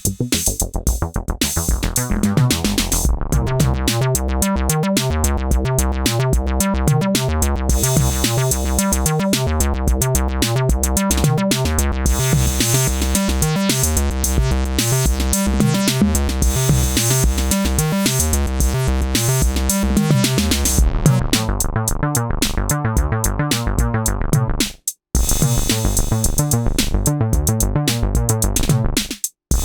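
Electronic synth bassline playing over a drum machine beat, a repeating pattern, cutting out briefly twice near the end.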